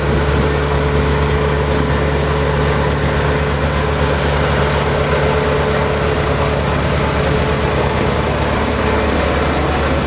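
Heavy road roller engine running steadily with a low, even drone, used as the steamroller's vehicle sound effect.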